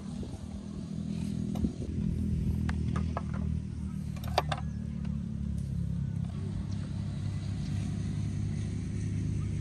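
An engine running steadily, a low even hum, with a few light clicks of a metal spoon on wooden serving dishes; the sharpest click comes a little over four seconds in.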